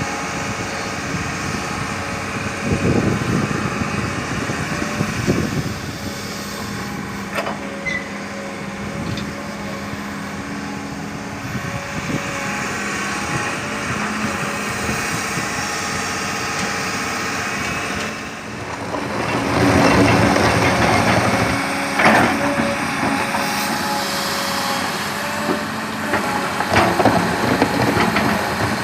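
Sumitomo S280 hydraulic excavator's diesel engine running steadily as it works, getting louder about two-thirds of the way through as it takes on load. A few sharp knocks are heard along the way.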